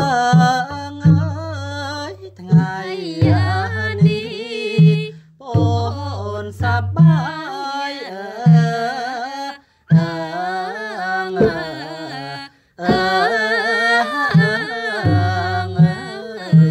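Traditional Cambodian music accompanying an Apsara dance: a sung, wavering melody over a low drum beat about once a second. The music cuts out abruptly twice for a moment.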